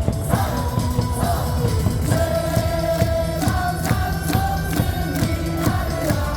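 Baseball cheer song played loud over the stadium speakers with a steady beat, the crowd of fans singing along.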